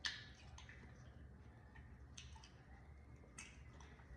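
Near silence with a few faint, brief clicks and ticks scattered through it, the first and sharpest right at the start.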